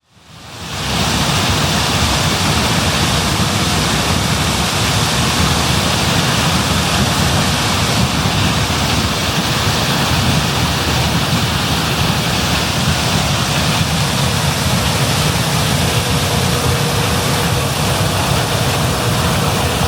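John Deere S660 combine running steadily while harvesting corn: a loud, even mechanical drone with a faint steady whine over it.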